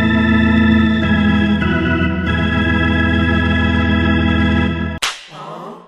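A held organ chord, its notes shifting slightly in the first couple of seconds, stops abruptly about five seconds in. A sudden rushing noise follows and fades away.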